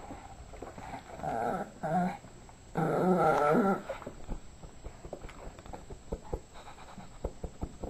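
A Yorkshire terrier making two wavering growl-whine sounds while playing with a ball, each about a second long, the second louder. After these comes a run of light clicks and taps.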